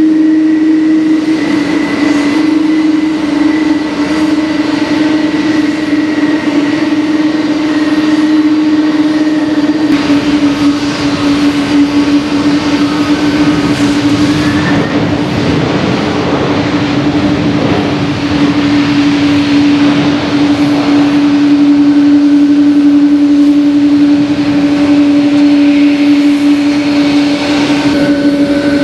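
Boeing 777-200 jet engines running steadily on the ground, a loud even whine over rushing noise that thickens for several seconds in the middle.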